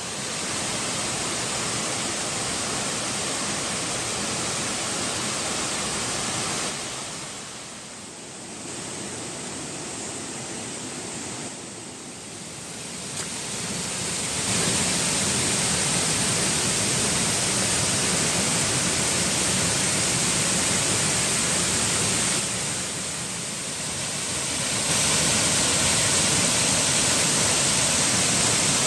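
Waterfall: a steady rush of falling water. It drops and rises in level several times and is loudest near the end.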